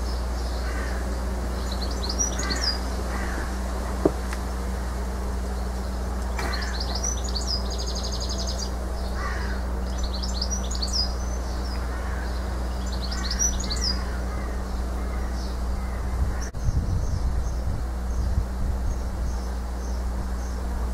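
House martins calling in short, high chirps and quick twittering runs, in clusters every few seconds, over a steady low background hum. There is a single sharp click about four seconds in, and some low rumbling later on.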